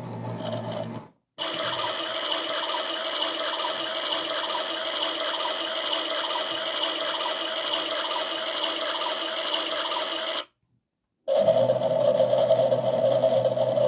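Front-loading washing machine running on a synthetic 60° cycle: a steady motor hum with a faint even pulse from the turning drum. The sound cuts out abruptly twice, a moment after the start and again near the end.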